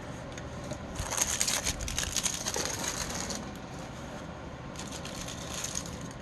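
Handling noise of small light items being moved about: crinkling and clicking in two bursts, a longer one about a second in and a shorter one near the end.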